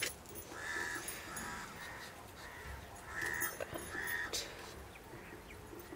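A bird cawing, a string of short harsh calls through the first four seconds, with a sharp click at the start.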